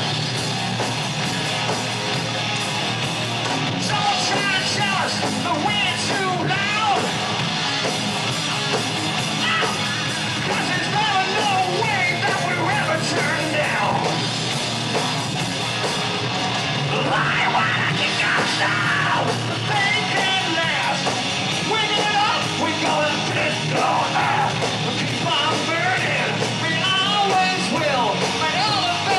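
Live heavy metal band playing loudly: distorted electric guitars, bass and drum kit, with a singer's shouted vocals.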